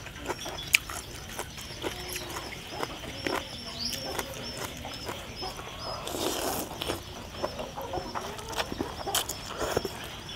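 Close-up eating sounds: moist chewing with sharp crunches, and about six seconds in a long slurp of rice noodles. Chickens cluck in the background.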